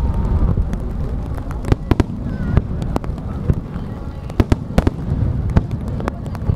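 Fireworks display: aerial shells and rising comets launching and bursting in quick succession, many sharp cracks over a continuous low rumble of booms.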